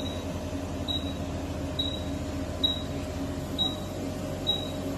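Veterinary patient monitor beeping evenly, a short high beep a little under once a second, the pulse tone of the anaesthetised dog, over a steady low hum of equipment.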